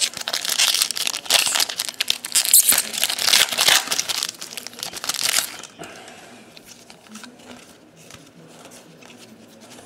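Foil wrapper of a 2012 Topps Series 2 baseball card pack being torn open and crinkled, a dense crackle that stops about five and a half seconds in, leaving only faint handling of the cards.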